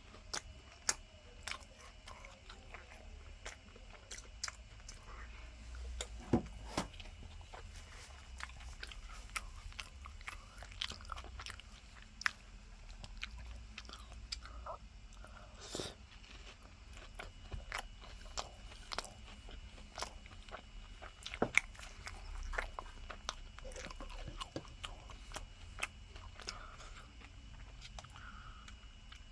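Close-up crunching and chewing of crispy breaded tonkatsu, with many irregular sharp crackles from the fried coating as it is bitten and chewed.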